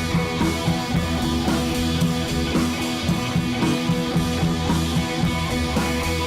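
Background rock music with guitar and drums, on a steady beat.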